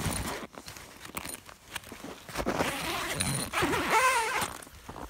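Zipper on a Snowtrekker canvas tent's door being pulled, with the canvas rustling as someone climbs in.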